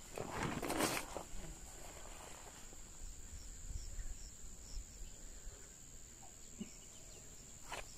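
Steady high-pitched insect drone in the background, with a brief rustle of the fabric keep bag being lifted about half a second in.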